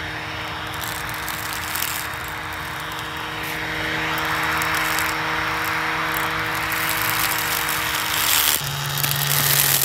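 Hard-drive spindle motor spinning a lawnmower blade at about 7,200 RPM, a steady whirring hum over grass. A rushing hiss of the blade through the grass grows louder about halfway through, and the hum drops in pitch near the end.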